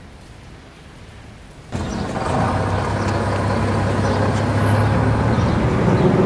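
Low rumble of a heavy road vehicle's engine, such as a bus or truck, cutting in suddenly about two seconds in and growing louder; before it, only faint background hiss.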